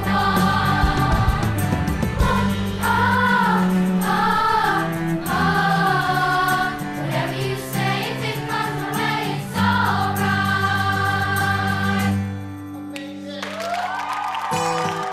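Background music: a choir singing long, wavering notes over a steady accompaniment, thinning out about twelve seconds in.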